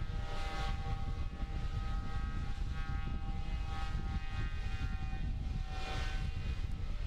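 A steady engine drone made of several held tones over a low rumble, swelling twice: shortly after the start and again near the end.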